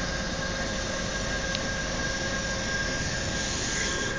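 Steady hum of a diesel locomotive engine idling, with a faint constant whine over it.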